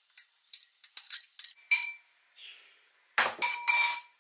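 Glass bowl and chopper container clinking and ringing as sorrel is scooped and tipped from one into the other: a quick run of short clinks, then a louder scraping, ringing rattle of glass about three seconds in.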